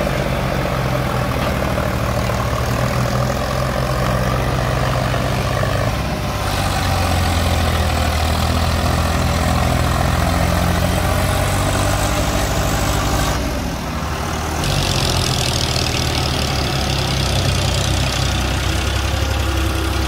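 Diesel tractor engines running steadily at low speed, with a backhoe working close by. The engine sound changes abruptly about six seconds in and again around fourteen seconds.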